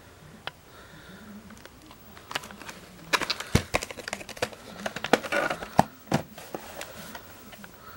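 A plastic clamshell VHS case being opened and the cassette handled and lifted out: a run of sharp plastic clicks, snaps and rattles, busiest in the middle, with a few loud snaps.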